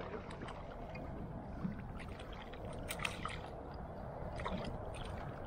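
Hooked fish thrashing at the surface on a fishing line, a scattering of sharp, short splashes over a steady wash of water noise.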